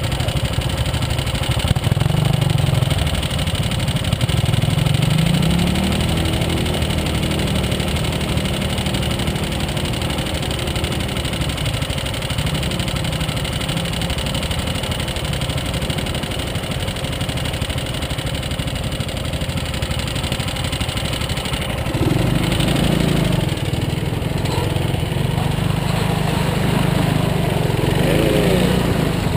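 Off-road ATV engine running as it rides along, its pitch rising and falling with the throttle; it gets louder about 22 seconds in.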